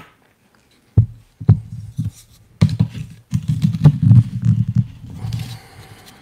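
Espresso portafilter with a dosing funnel being knocked on the counter and pressed with a hand tamper: a run of dull knocks that starts about a second in, comes quick and dense in the middle and eases off near the end.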